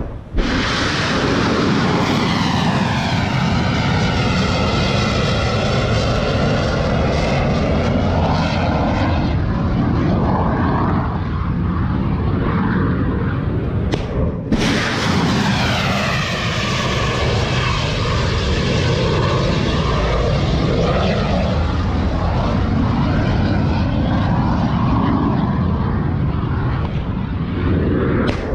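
Two ship-launched missiles, one after the other, each a loud, steady rushing roar of the rocket motor with a sweeping whoosh that rises and falls in pitch as the missile climbs away. The first roar cuts off abruptly about halfway through and the second begins at once.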